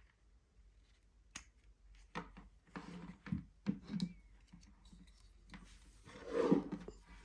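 Close-up hand-handling noises: scattered light clicks and knocks, with a louder rubbing rustle about six seconds in.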